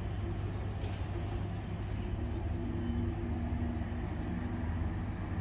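Siemens Combino tram running: a steady low rumble with a faint, steady two-tone hum through most of the stretch.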